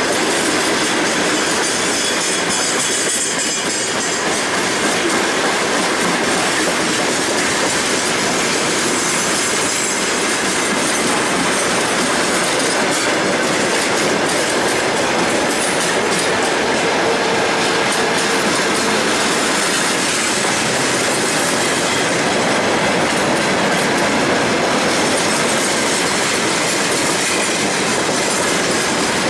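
Freight train wagons rolling past close by, a loud steady clatter of steel wheels on the rails that does not let up.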